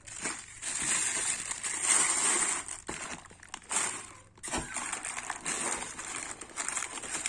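Clear plastic bags crinkling and rustling as parts are rummaged out of a cardboard box with foam packing, in fits and starts with short pauses about three and four and a half seconds in.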